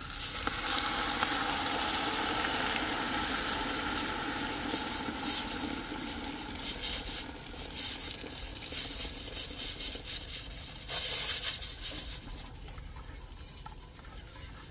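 Browned chicken sizzling in a pressure-cooker pot while a spoon scrapes and stirs it. About halfway, hot water is poured in from a jug, with irregular splashing and stirring, and the pot goes quieter near the end.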